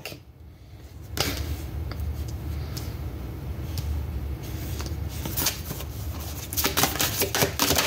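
Tarot cards being shuffled and handled: a steady rustling, with a quick run of card clicks and flicks near the end.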